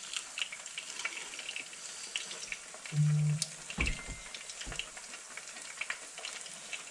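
Battered smelt deep-frying in hot oil: a steady sizzle with fine crackling throughout. About three seconds in there is a brief low hum, followed by a couple of low thumps.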